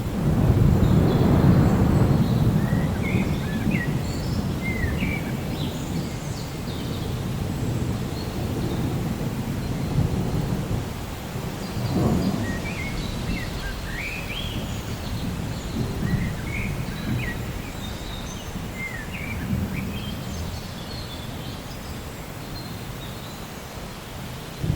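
Steady rain with low rolling thunder, the rumble loudest in the first few seconds and swelling again about halfway through. Birds chirp briefly and repeatedly over it.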